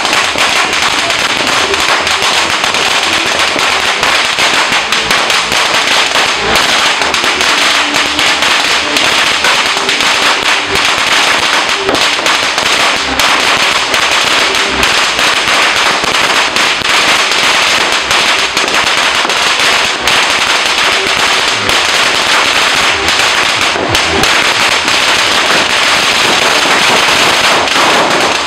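Firecrackers going off in a dense, continuous crackle of rapid pops, without a break.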